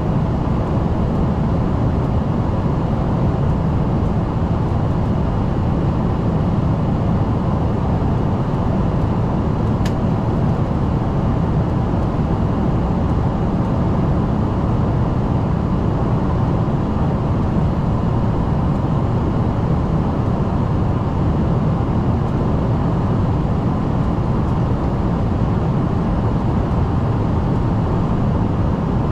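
Steady cabin noise inside an Embraer ERJ-145 regional jet with its Rolls-Royce AE 3007 turbofans running: an even low rumble with faint steady whining tones above it.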